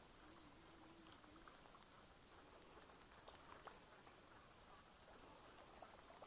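Near silence: faint creekside ambience with a steady thin high whine and a few faint scattered ticks.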